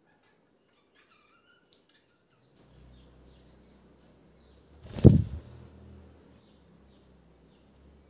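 Budgerigars chirping faintly, then a low steady hum comes in about two and a half seconds in. A single sudden loud thump comes about five seconds in.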